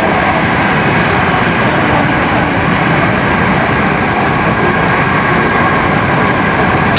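Running noise inside a Hankyu 7000 series car (renewed set with Toshiba IGBT-VVVF drive) travelling at a steady speed: a continuous rumble of wheels on rail with faint steady tones, no change in pitch.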